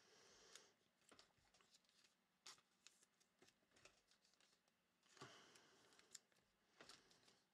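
Near silence, with faint scattered taps and two soft rustles, near the start and about five seconds in, as trading cards and packaging are handled on a tabletop.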